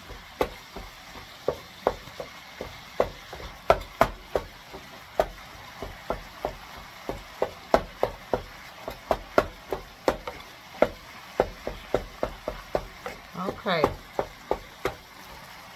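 A utensil knocking and scraping against a skillet in irregular strokes, about two to three a second, as ground turkey sausage is stirred and broken up while it browns. A faint frying sizzle runs underneath.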